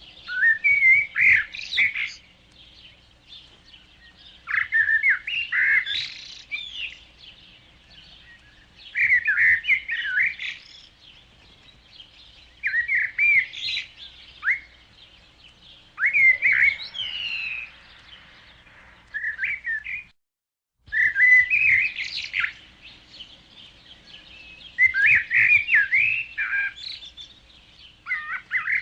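A songbird singing: phrases of quick chirps and warbling notes about two seconds long, repeated every four seconds or so, with a brief cut to silence about two-thirds of the way through.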